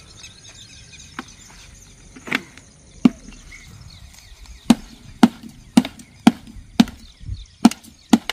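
Sharp knocks, like wood being struck: a few scattered ones at first, then a steady run of about two a second from halfway through. Faint high chirping behind.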